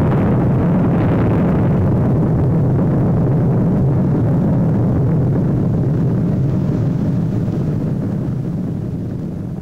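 Long low rumble of an explosion sound effect following the blast, holding steady and then fading away over the last couple of seconds.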